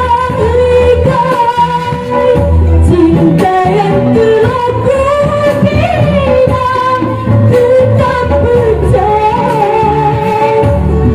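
A young woman singing solo into a microphone over backing music, holding long notes in a gliding melody.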